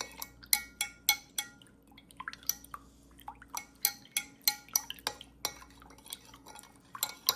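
A metal measuring spoon, turned handle-down, clinking against the side of a container as yeast is stirred into warm sugar water: irregular light clinks with a short ring, two or three a second.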